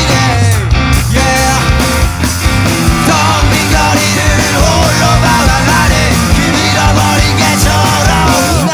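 Loud rock band recording: distorted electric guitar, bass and drums playing dense, driving rock music.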